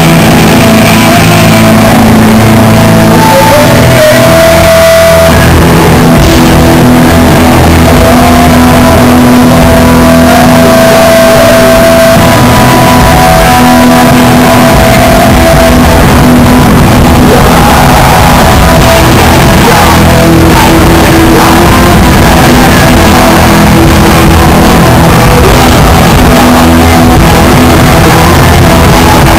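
Hardcore punk band playing live, very loud, with the recording pinned near full level throughout.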